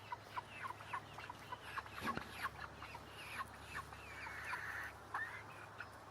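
Chickens clucking: a run of short, high calls, about three or four a second, with a longer, rougher call about four seconds in.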